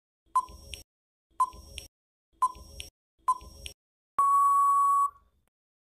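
Quiz countdown-timer sound effect: four short electronic beeps about a second apart, then one longer steady beep marking the end of the countdown.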